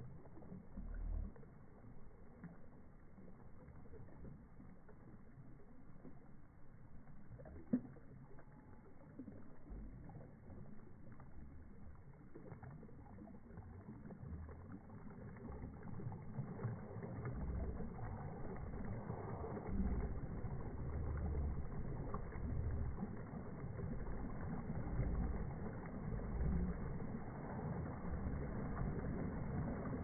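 Small waves lapping and washing over a sandy shoreline in shallow water, with irregular low thumps of water close to the microphone. The wash grows louder about halfway through, and there is one sharp click about eight seconds in.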